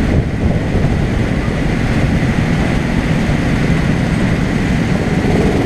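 Go-kart engines idling together, a steady low rumble with a faint steady whine above it.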